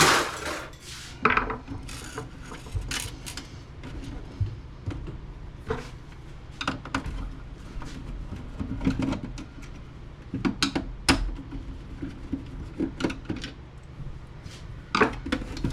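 Irregular clicks, knocks and rattles of hard plastic printer parts and hand tools being handled while an inkjet printer is taken apart, with a few louder knocks.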